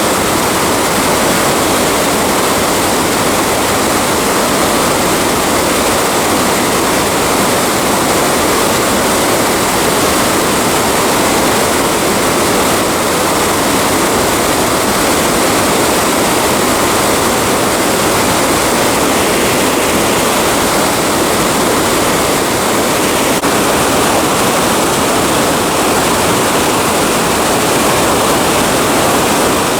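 Waterfall: a loud, steady rush of falling water, an even hiss with no breaks.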